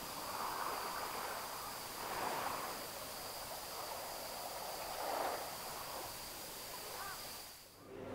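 Waves washing on the shore in slow, soft swells, under insects calling with one steady high trill. Both fade out near the end.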